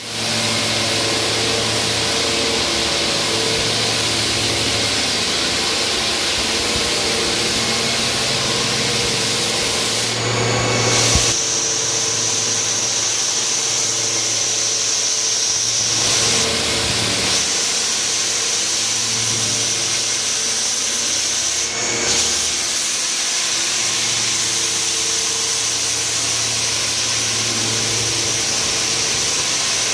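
Drum floor sander running and sanding a guatambu wood floor back to bare wood: a steady motor hum under the grinding of the abrasive on the boards, with a high whine that comes in about a third of the way through. The sound changes abruptly a few times.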